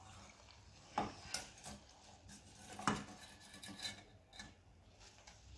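Wire-mesh frying skimmer scraping and knocking against a stainless-steel kadai while lifting fried gujiya out of the oil, with a few sharp metal clinks, the loudest about a second in and again near three seconds.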